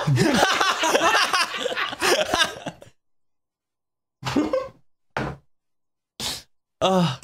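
People laughing hard together, dying away after about three seconds; after a short silent gap come a few brief bursts of laughter.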